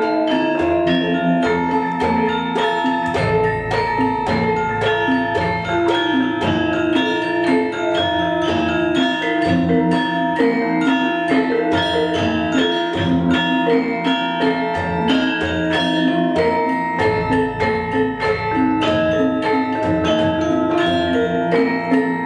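Javanese gamelan ensemble playing dance accompaniment in Yogyakarta style: bronze metallophones struck in a steady, dense pattern, with kendang drum strokes. A deep low swell comes in about three seconds in and again around seventeen seconds in.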